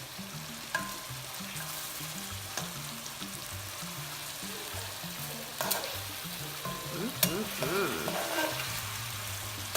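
Chicken pieces sizzling steadily in hot oil in a pan as they brown, with a few sharp clicks of utensils against the pan.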